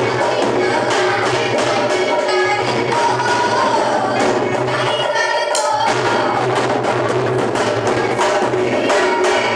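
Loud music with rhythmic percussion and a singing voice over a steady low bass, played over a sound system for a sound check; the bass drops out briefly about halfway.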